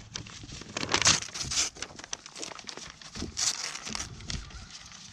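A paper sign crinkling and tearing as a goat bites and pulls at it, in an irregular run of rustles and crackles.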